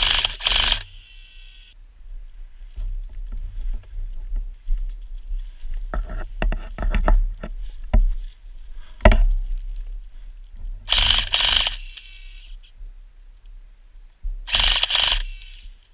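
Airsoft M249-style SAW replica firing three short full-auto bursts, a rapid mechanical rattle of about a second each: one at the start, one about 11 seconds in, and one near the end. Between the bursts come scattered knocks and rustling from the player moving.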